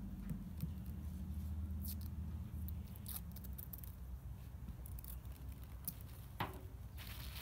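Small crisp crackles and rustles of washi tape being peeled off its roll and torn by hand, with a longer rip about six seconds in, over a low steady rumble.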